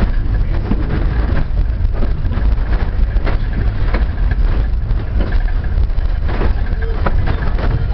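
Heritage passenger train rolling slowly along the track, heard from the rear car: a steady low rumble of the wheels on the rails, with scattered irregular clicks and knocks.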